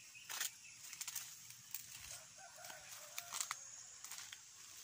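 Chickens clucking faintly in short calls, with scattered small clicks and rustles in dry leaf litter.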